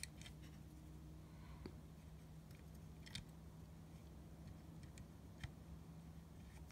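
Near silence: room tone with a steady low hum and a few faint clicks as a small brass torch nozzle is turned into place by hand.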